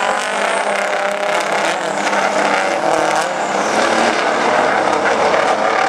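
Engines of racing big-rig trucks running together on the track, a steady loud drone that carries on without a break.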